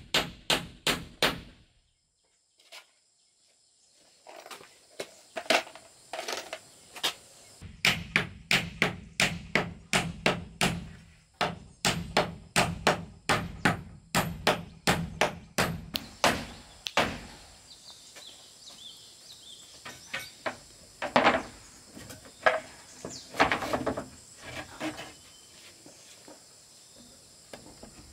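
Hammer blows on wood, about two a second in steady runs. They stop briefly a couple of seconds in, then come more sparsely in the last third.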